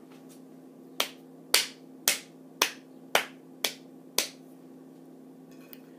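A person clapping her hands, seven sharp claps about half a second apart.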